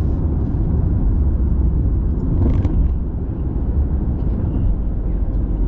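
Steady low road and engine rumble heard from inside a moving car's cabin, with one brief sharper sound about two and a half seconds in.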